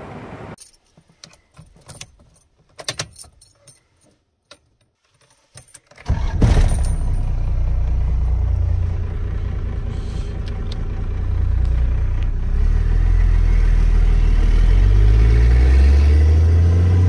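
Keys jingling and clicking at the ignition, then about six seconds in the first-gen Dodge D350's Cummins turbo diesel starts with a sudden burst and keeps running with a loud, steady low drone that grows a little louder later on.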